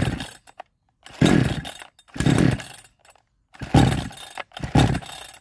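62cc two-stroke chainsaw being pulled over on its recoil starter about five times, each pull a short burst of cranking that does not catch into a steady run. It is not getting fuel, which the owner puts down to the carburettor.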